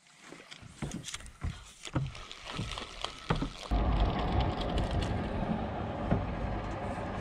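A series of knocks and clatter, like gear being handled in a boat. About four seconds in, a boat's motor starts running steadily and is louder than the knocks.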